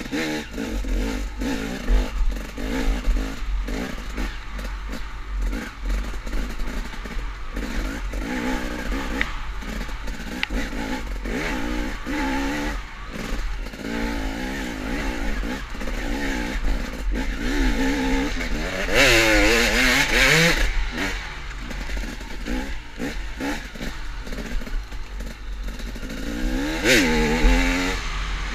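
KTM enduro dirt bike engine, revving up and down as it is ridden hard along a woods trail, with two strong rises in revs, one about two-thirds of the way through and another near the end.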